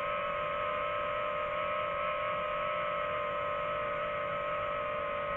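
DJI FPV drone's motors and propellers whining at a steady pitch while it hovers and drifts slowly.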